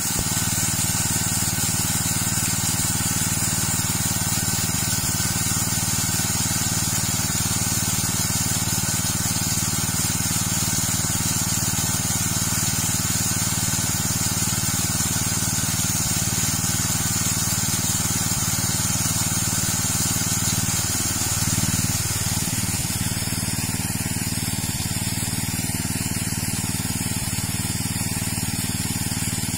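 Small petrol-engine water pump running steadily while its outlet gushes a jet of water onto the ground. The rush of water grows a little fainter in the last few seconds.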